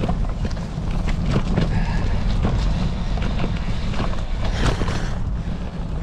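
Bicycle rolling over a rough forest trail, with irregular clicks and rattles, under a steady low rumble of wind on the microphone.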